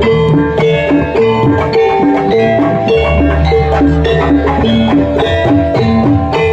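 Javanese gamelan music of the kind played for Jaranan dance: struck metal keys play a quick repeating melody over drums and a deep bass.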